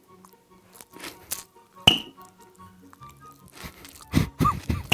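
Sharp crisp cracks of kohakuto crystal jelly candy being bitten and chewed loudly close to the microphone, the loudest about two seconds in, then a quick run of loud mouth noises near the end, over steady background music.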